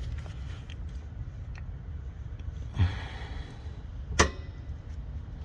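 Handling noise from a phone camera being turned around: a light knock with some rubbing a little under three seconds in and a sharp click a little after four seconds in, over a steady low rumble.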